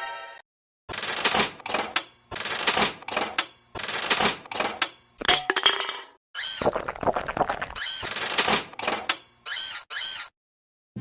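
Cartoon sound effect of rapid tapping, coming in a series of short bursts broken by brief silences.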